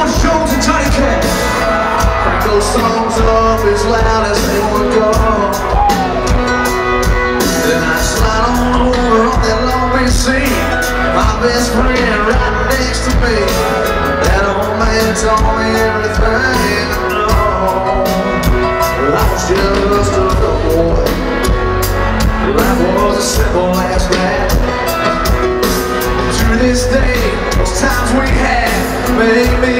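Live country rock band playing: electric guitars, keyboard and drums, with a male voice singing.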